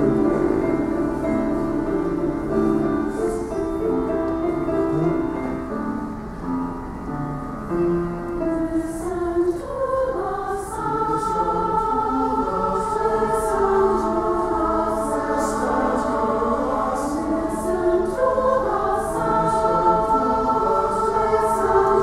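Mixed adult choir singing a slow piece in several parts, men's and women's voices together. The lower voices carry it at first; about halfway through the higher parts come in more strongly, with crisp 's' sounds on the words.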